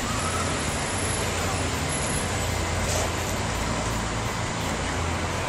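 Steady road-traffic noise with a low engine hum underneath.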